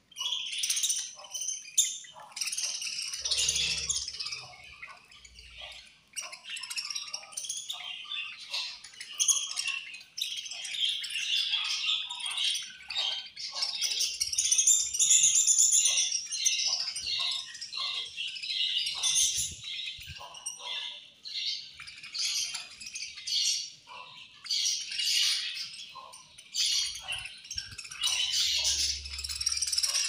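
A flock of budgerigars chirping and chattering nonstop while feeding together, with short clicks mixed in among the calls.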